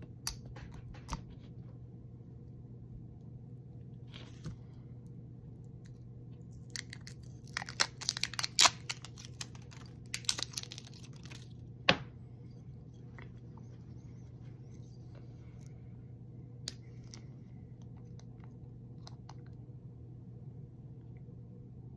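A hot sauce bottle being unsealed: its plastic seal crinkles and tears in two bursts of crackling, followed by one sharp click about twelve seconds in and a few small clicks afterwards, over a steady low hum.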